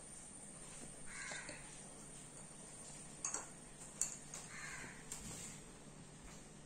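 Two faint crow caws, about a second in and again past the middle, over quiet room hiss. A few light clicks in between come from the wired screw electrodes and glasses being handled.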